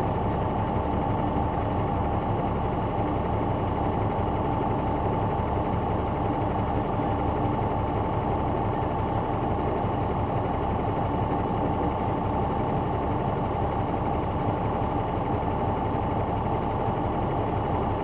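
Caterpillar C9 diesel engine of a 2004 Neoplan AN459 articulated bus running steadily, heard from inside at the back of the bus, with a steady high whine over its low drone.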